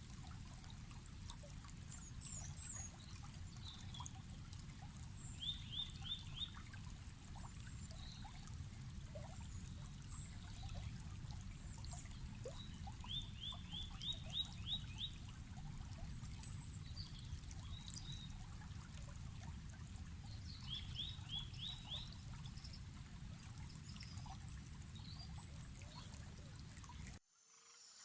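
Outdoor nature ambience of steadily running, trickling water with birds calling. One bird sings the same short quick series of four to six notes three times, over other scattered high chirps. The sound cuts off suddenly near the end.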